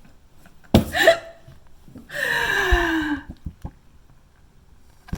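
A woman's sharp gasp about a second in, then a long wordless cry falling in pitch: an overwhelmed, delighted reaction.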